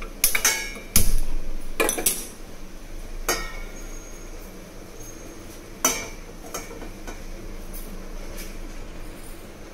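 Stainless steel frying pan clattering against the grate of a gas stove as it is lifted off and set back down. Half a dozen sharp metallic knocks and clinks, some ringing briefly, with the loudest about a second in.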